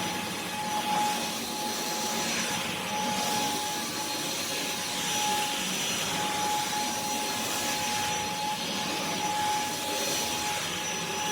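Vacuum cleaner running steadily: an even rush of air with a constant high motor whine.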